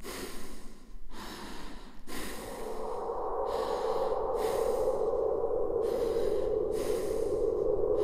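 A person breathing heavily in sharp, rhythmic breaths, about one a second, over a steady drone that swells from about two seconds in.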